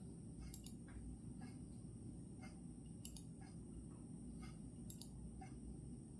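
Clock ticking steadily, about two ticks a second, faint over a steady low background noise.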